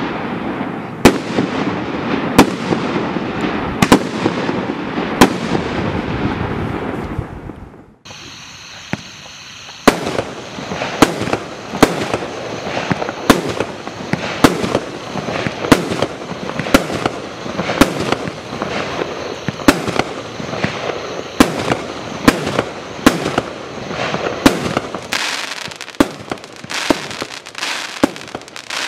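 Firework cakes firing: Primed Pyrotechnics' Jackpot cake fires sharp shots about every second and a half over a constant haze of noise, then goes quiet about eight seconds in. After a short lull the Cash Play cake starts firing faster, about one and a half shots a second.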